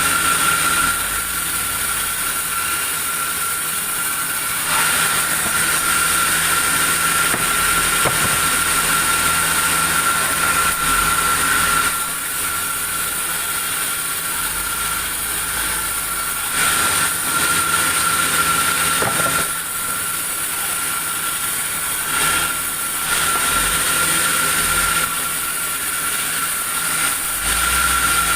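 A sawmill saw running steadily with a constant high whine and hiss. Its loudness steps up and down every few seconds as the load on the blade changes.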